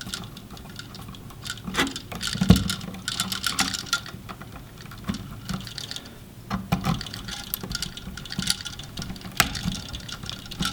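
Wire nut being twisted onto bundled bare copper ground wires: a run of crinkly scraping with scattered small irregular clicks.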